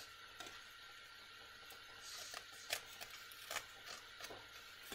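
Faint taps of a paint-loaded stamper pressed down onto paper on a tabletop: a handful of soft knocks, mostly in the second half.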